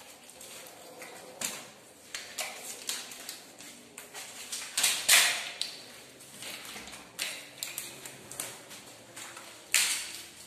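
Rustling and crinkling of clothing and foil-wrapped packages being pulled out from under tight elastic shapewear. It comes as a run of short scraping bursts, loudest about halfway through and again near the end.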